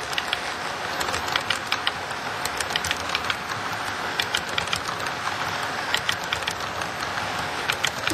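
Model railroad freight cars rolling past on the track: a steady rolling rumble with repeated sharp clicks, often in quick pairs, as the wheels cross rail joints.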